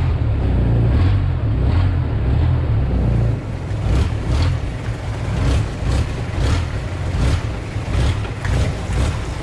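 Long-tail boat engine running underway, a loud low drone that eases off slightly about three seconds in. After that comes a run of short clicks, about two a second.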